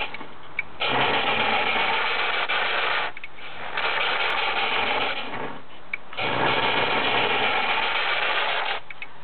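LGB Stainz G-scale model locomotive's electric motor and gears running, with a steady rushing whirr. The sound comes in three spells of two to three seconds each, dropping away briefly between them.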